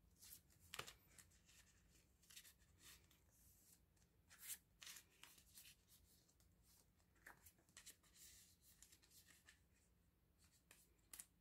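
Faint, irregular rustling and soft ticks of photocards and plastic card sleeves being handled while binder pages are set up.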